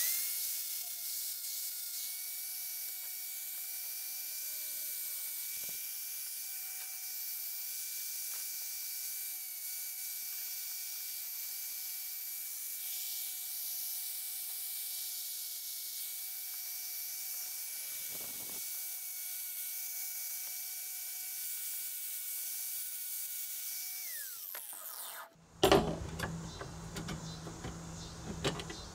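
Small angle grinder running steadily with a high whine while it grinds paint off a steel wire frame, baring the metal for welding. About 24 seconds in, the whine falls as the grinder winds down, and a sudden loud knock follows.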